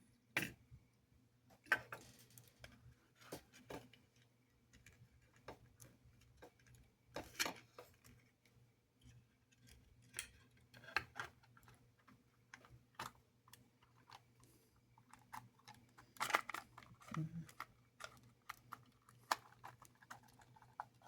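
Irregular light clicks and taps of small parts of a model locomotive being handled and fitted by hand on a workbench, over a faint steady hum.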